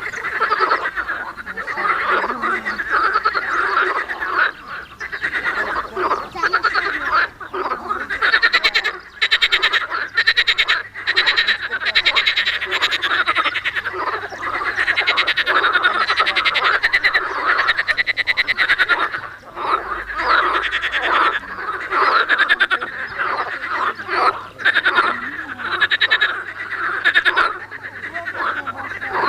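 A chorus of many frogs croaking continuously, their fast, pulsing calls overlapping without a break.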